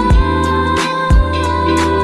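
Background music with a slow beat: two deep bass hits about a second apart under a held melody line.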